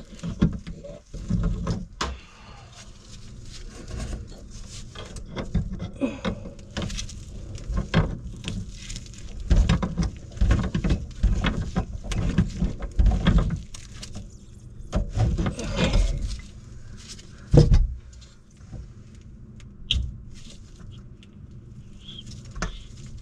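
Plastic knocks, clicks and scraping of PVC drain pipe and trap fittings being handled and fitted together under a kitchen sink, in irregular bursts with a few sharper knocks.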